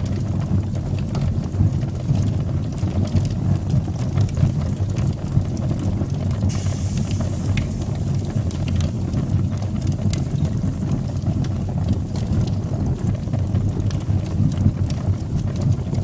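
Fire burning in a fireplace: a steady low rumble of flames with scattered crackles and pops, and a brief hiss about six and a half seconds in.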